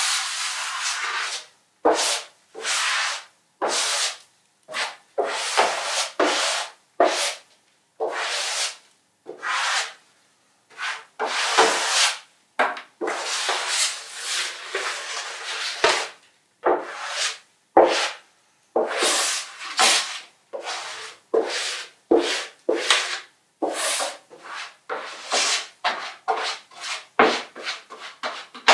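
A hand-held scraper dragged through wet paint across a board, in a long run of separate scraping strokes, roughly one a second, each half a second to a second and a half long, with short silences between them.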